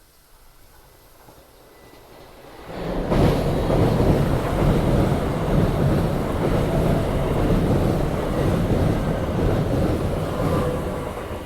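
JR 383-series limited express electric train passing: a rising approach, then about eight seconds of loud wheel-on-rail rumble and rushing air as the cars go by, easing off near the end.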